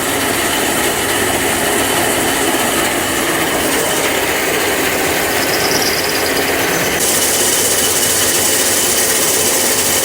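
Old metal lathe running while its cutting tool cuts through the weld on a steel driveline tube. The noise is steady and hissing, with a brief high squeal about five to six seconds in.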